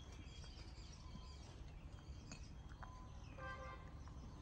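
Faint outdoor background: a steady low rumble with scattered small bird chirps, and one short pitched call about three and a half seconds in.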